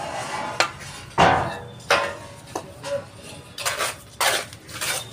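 Fired clay bricks being set down and knocked against one another as they are stacked, a series of sharp clacks with the loudest about a second in.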